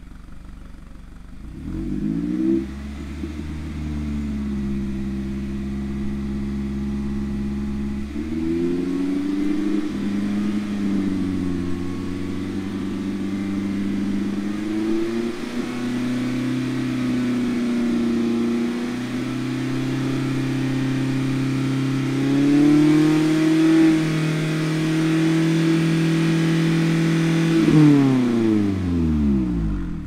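ND Mazda MX-5 Miata's four-cylinder engine running through a Goodwin Racing single-tip exhaust with its stock baffle fitted. It is held at steady engine speeds that step up four times, about 2,000, 3,000, 4,000 and 5,000 rpm in turn, then drops back to idle near the end.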